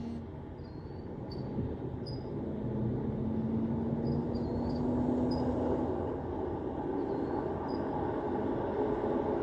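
Kenworth T680 semi truck's diesel engine pulling a refrigerated trailer, a steady low rumble that grows a little louder about three seconds in, its engine note climbing slightly for a few seconds as it pulls away.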